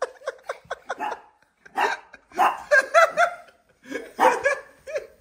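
Young men laughing and crying out in short bursts while play-wrestling, with brief gaps between the outbursts.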